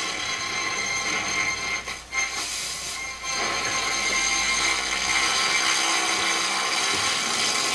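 Roberts R707 transistor radio sounding through its loudspeaker: a steady hiss of static with faint whistles in it, dipping briefly about two seconds in and again about a second later. The sound is distorted, which the restorer puts down to the speaker wires touching each other.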